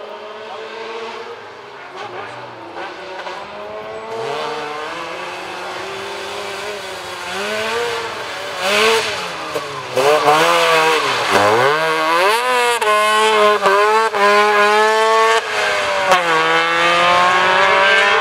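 A Trabant rally car's engine approaches and grows steadily louder. It then revs hard through the corner, with the pitch rising and dropping several times as the driver lifts and shifts, and it holds at high revs near the end.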